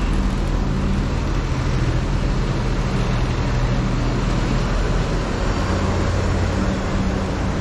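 Steady city street traffic at an intersection, with a city bus's engine running among passing cars.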